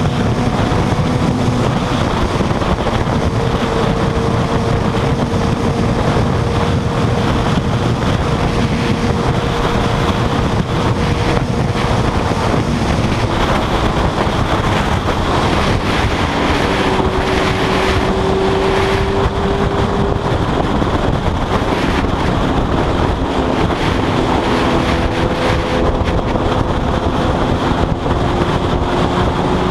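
Suzuki GSX-R1000 inline-four sport bike at high highway speed: heavy wind rush on the microphone over a steady engine note that shifts lower partway through as the speed eases off.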